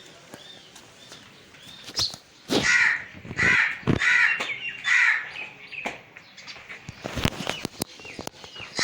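Crows cawing: four harsh caws in quick succession through the middle, with a few short sharp knocks around them.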